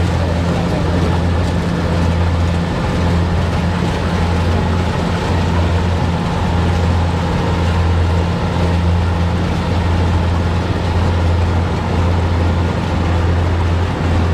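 Kubota DC70 combine harvester's diesel engine running steadily, a continuous low drone with mechanical rattle and noise above it.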